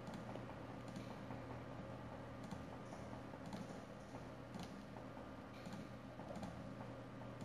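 Computer mouse clicking on-screen calculator buttons: faint, irregularly spaced clicks, about a dozen, over a low steady hum.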